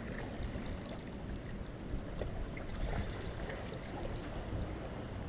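Calm sea water lapping and trickling against the rocks at the water's edge, small irregular splashes over a low steady rumble.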